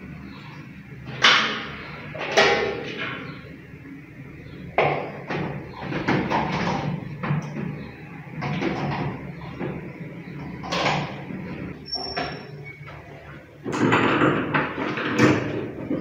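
Knocks, scrapes and rattles of a ceiling fan's canopy and motor housing being handled and fitted at the ceiling: a string of sharp knocks spread out over the time. Near the end a longer clatter of a folding metal chair as he steps down from it.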